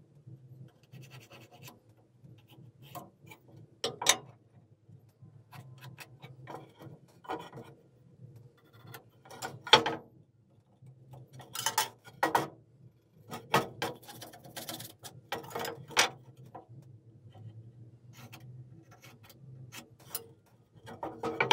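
Carpenter's pencil scratching lines onto a wooden board along a steel try square, with the square sliding and knocking against the wood in irregular scrapes and taps, the sharpest about ten seconds in. A faint steady low hum runs underneath.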